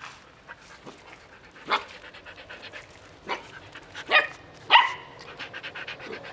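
Puppies giving four short, high yelps over a few seconds, the last the loudest, with quick panting between.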